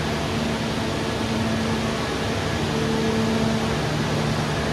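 A steady low mechanical drone, with a few steady low tones, over an even hiss.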